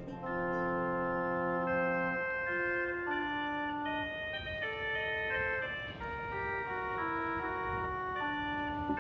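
Background music: a slow melody of long, steadily held notes over sustained chords, changing every second or so.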